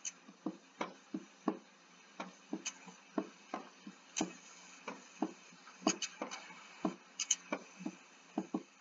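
Short sharp clicks and taps on a computer at uneven spacing, roughly two a second, over a faint steady hiss.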